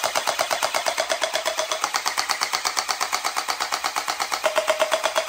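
Electric gel blaster pistol firing on full auto: a rapid, even clatter of about a dozen shots a second from its gearbox and blowback slide, with a steady motor whine beneath.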